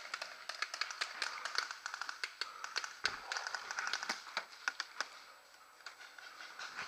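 Paintball markers firing out on the field, a rapid, irregular patter of small pops that thins out near the end.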